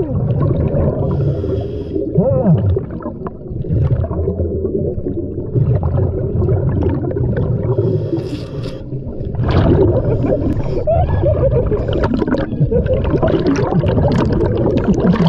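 Underwater scuba breathing through a regulator: hissing inhalations and rumbling, gurgling exhaled bubbles, with a few short rising and falling tones. The biggest surge of bubbles comes a little before the middle.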